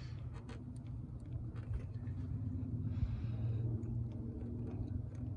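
A steady low hum with faint, scattered small clicks and taps.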